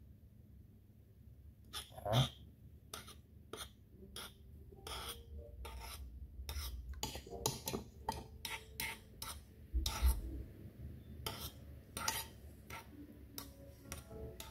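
Metal teaspoon stirring powdered veal stock into milk in a bowl, clinking and tapping against the bowl's sides at irregular moments.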